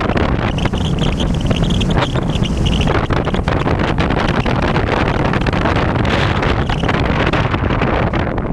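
Wind buffeting the microphone of a GoPro mounted on a Bixler RC airplane in flight, a loud, steady, rumbling rush. A faint high whine, likely the plane's electric pusher motor, is heard over the first three seconds.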